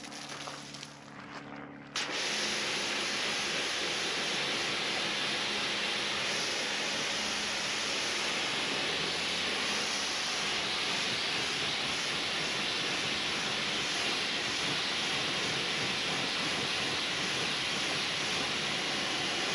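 Pressure washer spraying: a steady, loud hiss of the water jet. In the first two seconds the spray pauses and only a low hum is heard, then the jet starts again about two seconds in and runs on unbroken.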